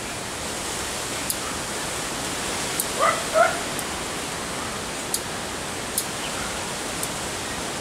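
A dog gives two short yips about three seconds in, each rising in pitch, over a steady outdoor hiss. Light, sharp clicks come every second or so, fitting pruning shears snipping bonsai twigs.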